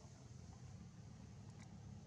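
Near silence: a faint, steady low hum of outdoor background noise, with a faint tick about one and a half seconds in.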